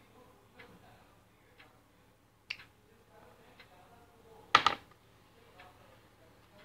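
Wall clock ticking faintly about once a second, with a sharp click about 2.5 s in and a louder double knock about 4.5 s in as a plastic scoop digs through sand in a plastic bowl.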